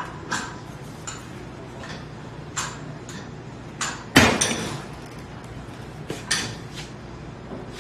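Steel tire iron levering a tire bead over an alloy wheel rim on a tire changer: a string of sharp metallic clinks and knocks as the bar strikes the rim and the machine's mount head, the loudest about four seconds in, over a steady low hum.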